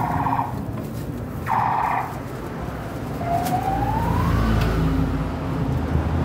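Street traffic: two short buzzy vehicle horn honks, then a vehicle going past with a rising whine over a low rumble.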